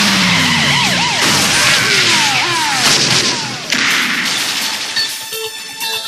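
Loud, noisy sound effects with quick rising-and-falling whistling tones, like a mix of zaps and crashes. Music with steady notes takes over about four to five seconds in.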